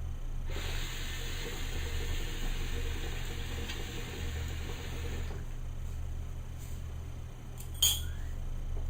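Hookah drawn on for about five seconds, the water in its base bubbling. A single sharp click near the end.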